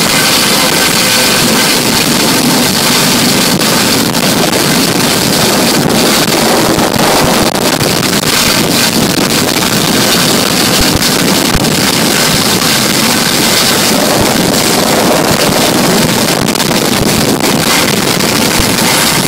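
Patrol boat running at speed: a steady mix of engine noise and rushing wake water, with wind buffeting the microphone.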